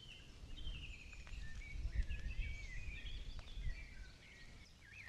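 Wild birds singing, many short chirping and warbling phrases overlapping, over a low rumble that swells in the middle.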